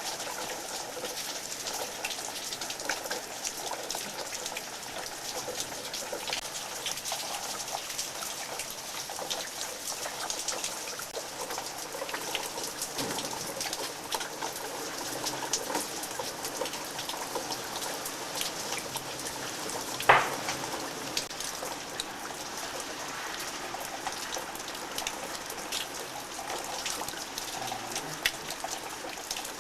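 Steady rain falling, with a patter of individual drops. A single sharp knock stands out about twenty seconds in.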